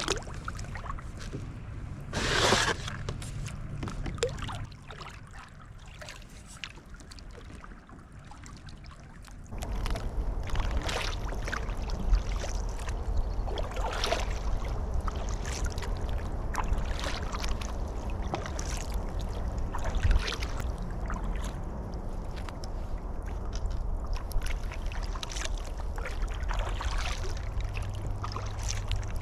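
Water sloshing and trickling around a kayak, with scattered knocks and small splashes, one louder splash or knock about two seconds in. From about ten seconds in, a steady low rumble comes in under it.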